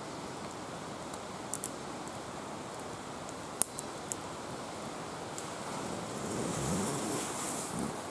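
Campfire burning with a steady rushing hiss and a few sharp wood pops. Near the end, a louder rustling comes in.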